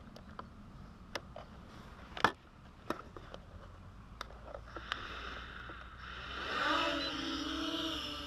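A few sharp clicks and knocks, the loudest about two seconds in, then from about six seconds a motor-like whine that rises in pitch and holds steady.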